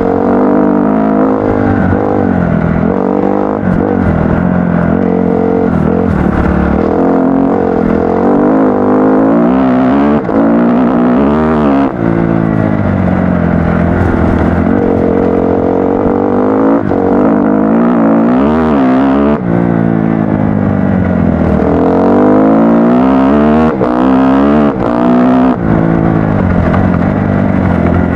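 Kawasaki KX-F dirt bike's single-cylinder four-stroke engine running under a rider, its pitch rising and falling again and again as the throttle is worked along a trail, with a few short knocks in between.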